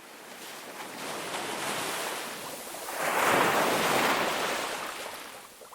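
Ocean surf washing in a rushing noise that builds to a peak about three seconds in and then fades away.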